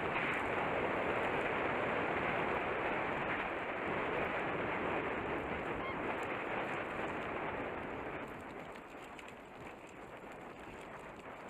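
Steady rushing noise of wind on the microphone and tyres rolling over dirt, as from a camera riding a mountain bike down a trail; it eases off about eight seconds in.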